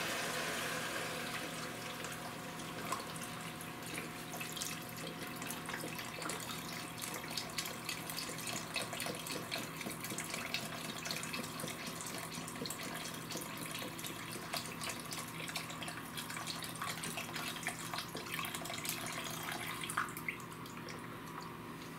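Chicken broth being poured into a stock pot of sautéed chicken and vegetables: a steady pour of liquid with small splashes and ticks, easing off near the end.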